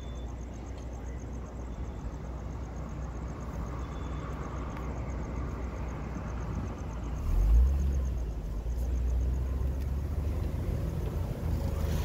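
Low, steady road and engine rumble heard from inside a moving car's cabin, growing louder with a brief peak about seven and a half seconds in.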